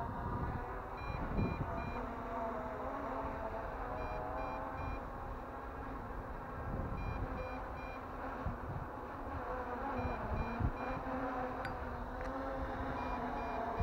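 MJX Bugs 3 Pro quadcopter's motors and propellers humming overhead, with wind noise. A set of three short high beeps repeats about every three seconds, a low-battery warning as the drone's battery runs down.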